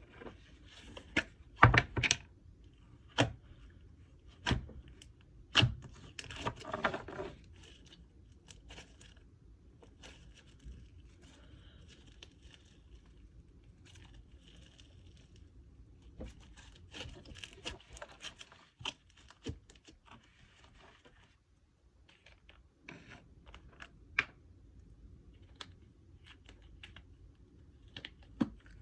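Handling slime and its plastic tubs while assembling a slime kit: several sharp clicks and knocks of plastic lids and containers in the first few seconds, then sticky, tearing and crinkling sounds of slime being pulled and mixed, with scattered lighter clicks.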